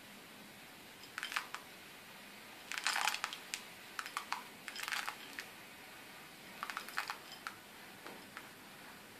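Hop pellets tipped off a ceramic plate into a pot of wort, in several short bursts of rattling clicks as the pellets slide off the plate and drop in.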